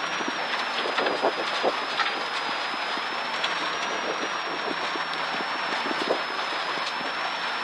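Cabin noise inside a rally car at speed on a gravel stage: a steady rush of tyres and engine with a faint high whine, peppered throughout with many sharp ticks and knocks of gravel striking the bodywork.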